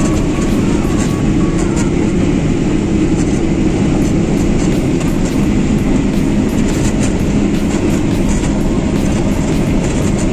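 Claas Medion 340 combine harvester heard from inside its cab while harvesting maize: a loud, steady rumble of engine and threshing machinery, with a steady low hum and scattered light clicks and rattles.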